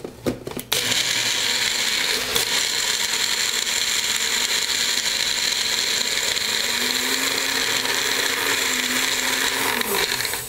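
Personal bullet-style blender running steadily, blending ice and pickle juice into a slushie, with the cup pressed down onto the motor base. It starts about a second in, after a few clicks as the cup is seated, and cuts off near the end.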